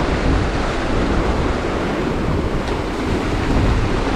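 Small waves breaking and washing over boulders and a shingle beach, a steady rush of surf, with wind buffeting the microphone as a low rumble.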